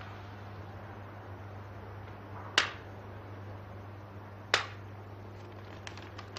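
A paper banknote, a suspect 100-dollar bill, snapped taut between the hands twice, two sharp cracks about two seconds apart, then faint crinkling as the note is crumpled near the end.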